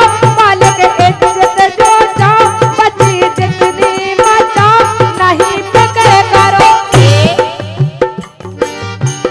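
Instrumental interlude of a Bundeli folk wedding song: a melody line with sliding, ornamented notes over a fast hand-drum rhythm. About seven seconds in the drumming drops out and the melody thins into sliding notes and gets quieter.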